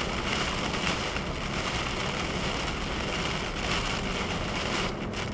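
Heavy wind-driven rain pelting the car's roof and windshield, heard from inside the cabin over the steady noise of the car on the road. The rain noise eases briefly near the end.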